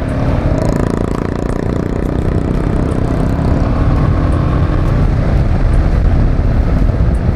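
Royal Enfield Himalayan's 411 cc single-cylinder engine running under way as the motorcycle picks up speed on an open road, with wind noise on the microphone; the sound stays loud and steady, rising slightly.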